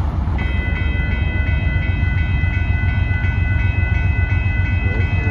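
Railroad grade-crossing bell starts ringing about half a second in, with rapid, evenly repeated strokes, as the crossing signals activate for an approaching train. A steady low rumble runs underneath.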